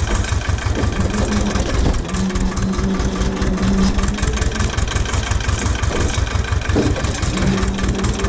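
Ursus C-330 tractor's two-cylinder diesel engine running steadily with a rapid low thudding beat, and a steady humming tone that comes and goes over it.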